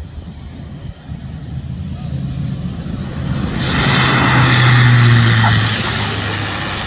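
Beechcraft King Air C90's twin PT6A turboprop engines and propellers passing close on the runway after landing: a steady low propeller hum under a rushing hiss, growing louder to a peak about five seconds in, then easing off a little.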